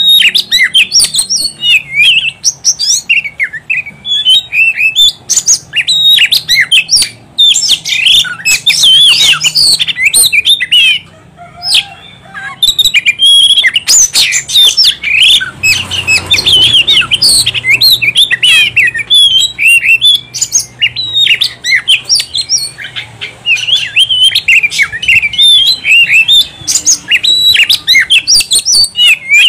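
Oriental magpie-robin singing nonstop: a loud, rapid run of sharp, varied whistles and chirps, with a brief pause about eleven seconds in.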